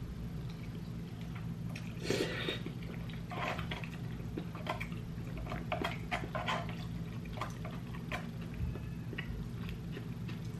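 Close-up eating sounds: ramen noodles slurped and chewed, with a loud slurp about two seconds in, followed by a run of small clicks and scrapes of a plastic fork in a foam cup, over a steady low hum.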